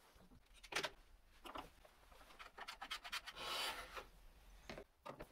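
Hands handling a bar clamp and a wooden joint on a workbench: a few light knocks and clicks, and a short rubbing scrape a little past three seconds in, the loudest sound.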